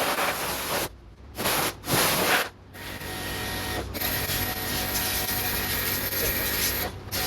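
Car-wash spray hissing in spurts: it cuts out briefly twice, then runs steadily for about four seconds over a faint machine hum.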